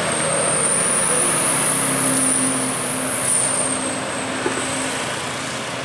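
A road vehicle passing close by: steady engine and road noise, with a thin high whine that rises and then fades over about four seconds.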